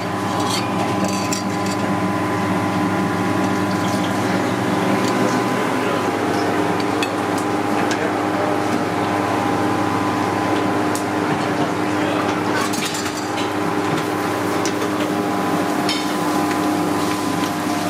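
Steady hum of commercial kitchen equipment, with several held tones, and a few short clinks of metal tongs and dishes.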